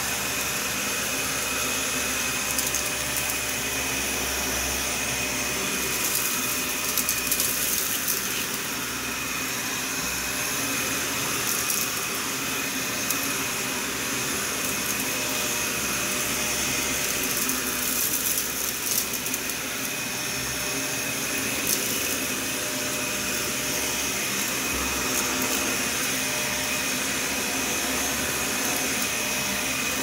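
Dyson ball upright vacuum (a DC41 fitted with a DC65 Animal Complete cyclone pack and cleaner head) running steadily over carpet, a constant rush of suction with a high whine. Scattered little crunches and clicks as bits of rock salt are sucked up.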